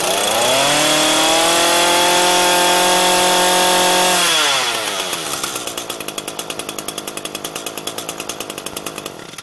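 Brush cutter's small engine blipped from idle (about 3,400 rpm) up to full throttle (about 10,800 rpm), held there about three seconds, then let back down to a lumpy idle near 3,150 rpm. The engine cuts out abruptly near the end.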